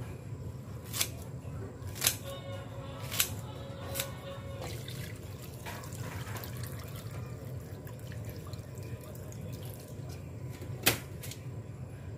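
Kitchen scissors snipping through kimchi in a stainless steel bowl, four sharp snips in the first four seconds, followed by kimchi broth trickling and dripping through a mesh strainer.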